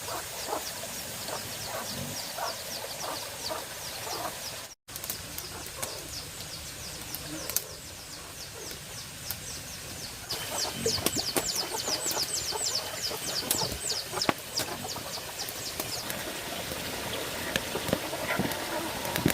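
Birds calling: a quick run of short, repeated mid-pitched calls, then, after an abrupt cut, a fast stream of high descending chirps over a thin steady high tone.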